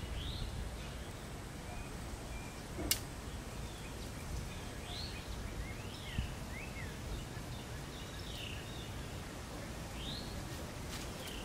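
Crepe myrtle selfbow being drawn on its string to check the tiller, giving one sharp snap about three seconds in, which the bowyer hopes was only the bark left on the back cracking. Underneath are a steady low neighbourhood hum and birds chirping in short repeated calls.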